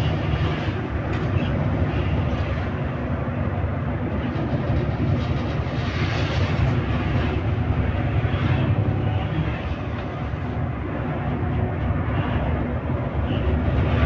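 Intercity bus engine and road noise heard from inside the cabin while driving: a steady low hum that swells slightly now and then.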